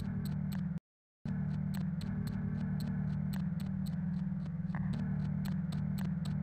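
Electronic soundtrack drone: a steady low hum with a regular ticking of about four clicks a second over it. It cuts out to silence for about half a second roughly a second in, then resumes unchanged.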